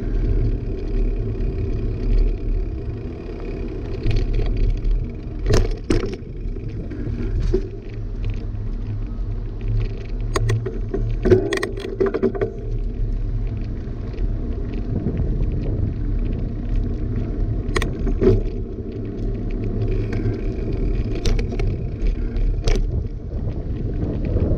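Mountain bike with knobby tyres rolling over pavement: a steady low rumble with several sharp knocks and rattles from bumps in the surface.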